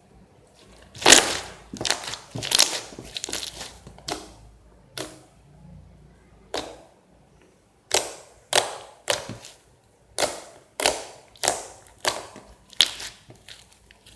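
Thick slime worked by hand, giving a series of sharp clicking pops. A quick irregular cluster comes in the first few seconds, then an even run of under two pops a second near the end.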